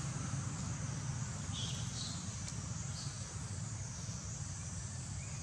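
Steady outdoor background noise: a low rumble and a high hiss, with a few faint short high-pitched chirps around the middle.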